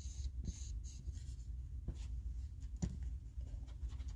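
Handling noise from a selfie-stick phone tripod being turned and adjusted in the hands: faint rubbing and scraping with a few small clicks, over a steady low hum.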